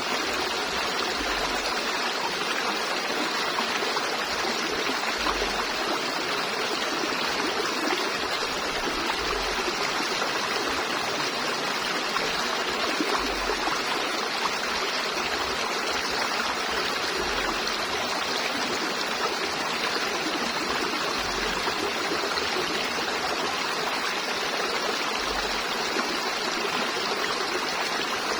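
River water flowing steadily, an even, unbroken rush of water noise.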